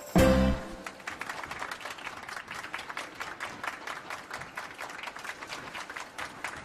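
A single loud thump about a fraction of a second in, then steady applause, a dense patter of many hands clapping.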